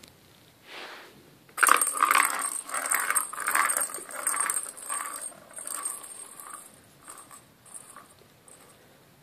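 Kitten clawing and scrabbling at the hessian mat of a cat rocker toy: rough scratching and rustling that starts suddenly, then thins out into a few light scuffs.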